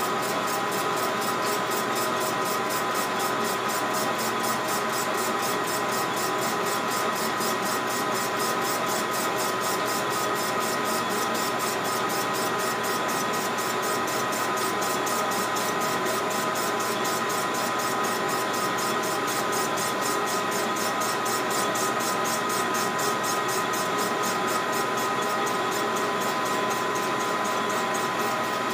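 Benchtop metal lathe running steadily with a whine while a cut is fed across an aftermarket STIHL MS 660 chainsaw cylinder held in the chuck.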